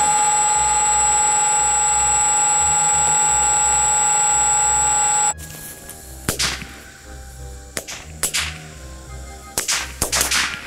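Twin electric motors of a Dynam PBY Catalina RC plane running at a steady high whine, with a thin high tone above it; it cuts off suddenly about five seconds in. Then a string of sharp cracks, irregularly spaced, from a mock anti-aircraft gun tube in the grass.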